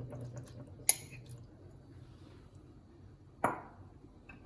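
Kitchen utensils being handled: a sharp metallic click about a second in, then a knock with a short ring near the end.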